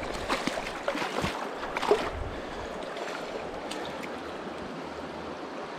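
Steady running water of a small river, with a few sharp clicks and knocks in the first couple of seconds, the loudest about two seconds in.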